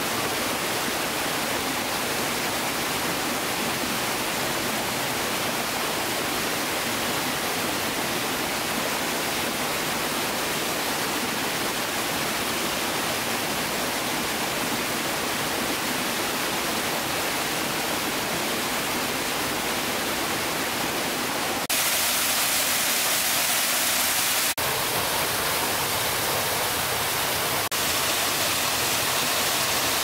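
Waterfall: a steady rush of falling water. It changes abruptly in level and tone three times in the last third.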